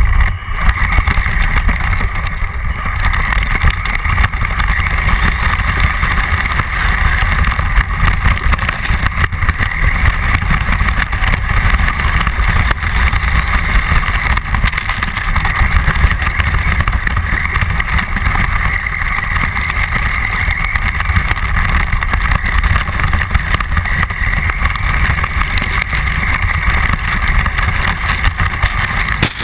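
A small engine running at fairly steady high revs, with heavy low rumble over the microphone.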